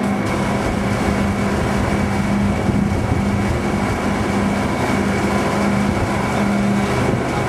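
A fishing boat's engine machinery running steadily, heard on board as a constant drone with a low hum and a faint high whine.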